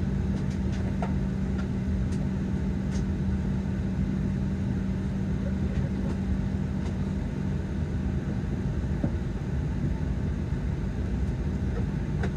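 Steady cabin drone of a Boeing 737-800 taxiing: a low rumble with a constant hum, and a few faint clicks.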